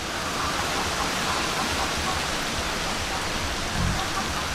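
Pork innards sizzling in a wok as their sauce cooks down to dryness: a steady, even hiss.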